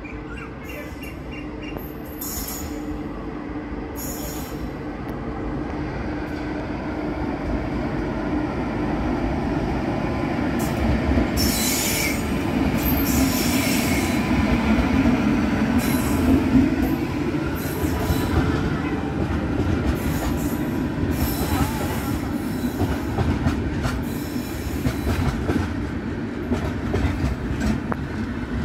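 Electric-locomotive-hauled express passenger train running in past the platform. Its rumble grows louder to a peak about halfway through. Sharp high squeals come just before the peak, and a run of clatter from the coach wheels over the rail joints follows as the coaches pass.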